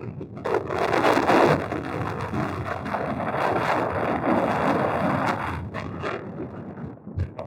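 Wind buffeting the microphone: loud, gusting rumble that eases off near the end.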